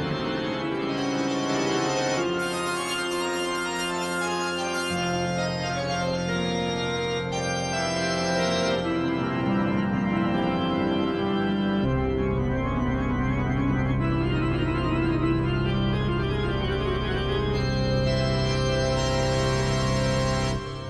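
Background soundtrack music: held chords over sustained bass notes, with the bass moving to a deeper note about twelve seconds in and a brief drop just before the end.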